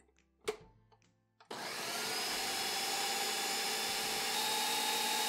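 A single sharp clack about half a second in, then a countertop blender switched on about a second and a half in, its motor running steadily with a high whine as it purées fresh shallots, garlic, ginger, turmeric and chili into a spice paste.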